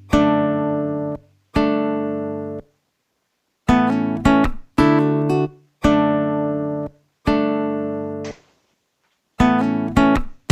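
Background music: an acoustic guitar plays separate chords, each ringing about a second before being stopped short, with brief silences between.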